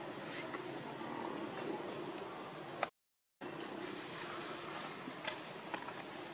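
Steady high-pitched drone of insects in the forest, broken by a half-second gap of silence about three seconds in.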